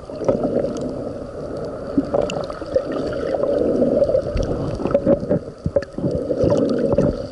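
Muffled underwater sound of seawater sloshing and gurgling around a camera just below the surface, a dull steady rush with scattered sharp clicks and crackles.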